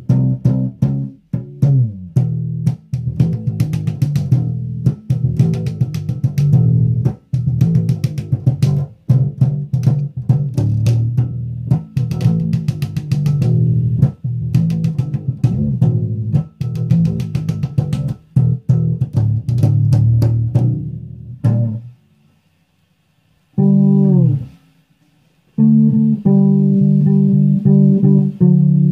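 Five-string fretless electric bass plucked with the fingers: a long run of quick notes, a brief stop about two-thirds through, one note sliding down in pitch, then the playing picks up again.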